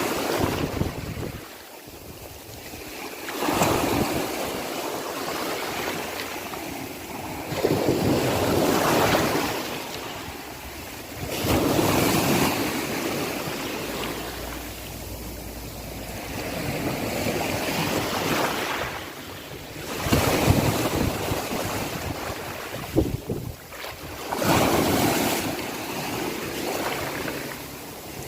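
Sea waves breaking and washing up the shore, one surge after another about every four seconds, each swelling and then fading. A brief sharp knock about three-quarters of the way through.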